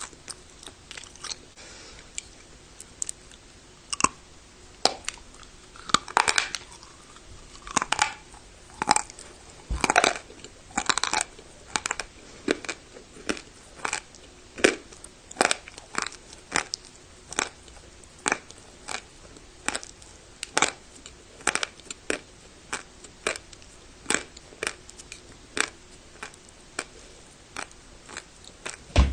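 A person biting and chewing dry clay (turbah prayer-tablet clay) close to the microphone: a run of sharp crunches about once or twice a second, with quieter grinding and crackling between bites.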